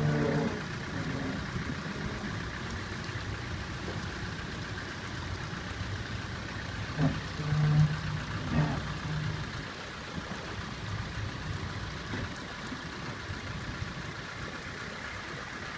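Land Rover Defender 110's 300Tdi four-cylinder turbodiesel running at low revs as the vehicle crawls up over rocks, with two brief rises in level around seven and eight and a half seconds in.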